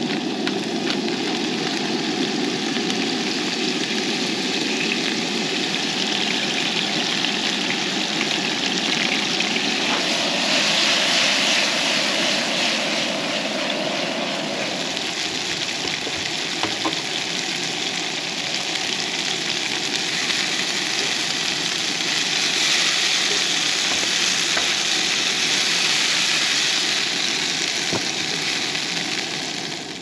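Shrimp sizzling in hot oil in a nonstick frying pan, a dense steady hiss, over the steady roar of the camp stove's burner.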